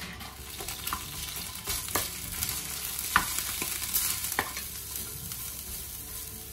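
Sliced onion rings frying in butter in a nonstick frying pan, sizzling steadily as a wooden spatula stirs them, with a few sharp taps of the spatula against the pan, the loudest about three seconds in.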